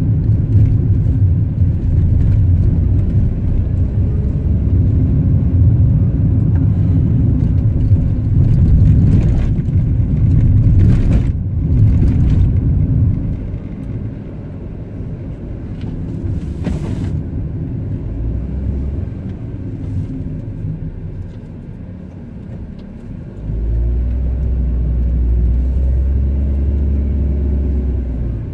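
Car being driven on a mountain road: steady low engine and tyre rumble, louder for the first half and then easing off, with a deeper steady drone setting in about five seconds before the end.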